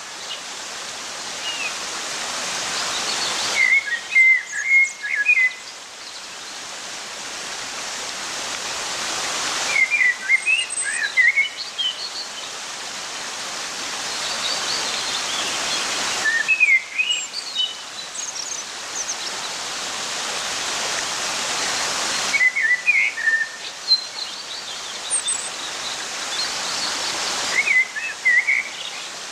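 Rushing water noise with birds chirping, in a cycle that repeats about every six seconds: the rush swells steadily, drops away suddenly, and a burst of chirps follows, like a looped nature-sound track.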